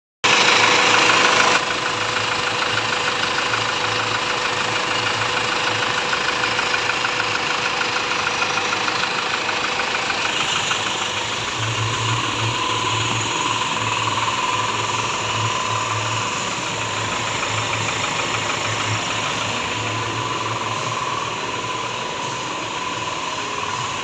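Hyundai Starex van engine running steadily at idle, louder for the first second and a half.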